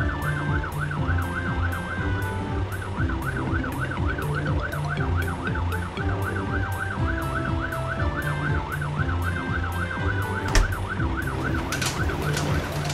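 Cartoon fire engine's siren, a fast up-and-down warble that runs on almost without a break, over background music with a steady beat. A single sharp knock comes about ten and a half seconds in.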